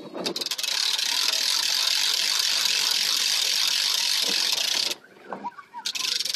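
Hand-cranked boat trailer winch ratcheting rapidly as its strap is wound in, pulling the boat up onto the trailer. A long run of clicking stops about five seconds in, and the cranking starts again just before the end.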